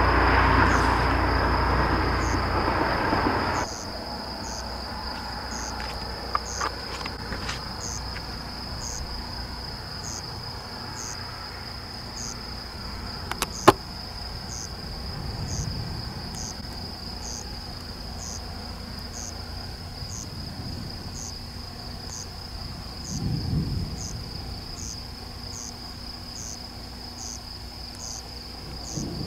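Night insects calling steadily: a continuous high trill with short chirps repeating about once a second. A loud rushing noise cuts off suddenly a few seconds in, a sharp click comes about halfway through, and faint low rumbles of distant thunder come twice later on.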